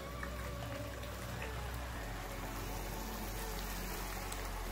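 Thick chicken curry sizzling steadily in a steel kadai over a gas flame as a little hot water is poured in.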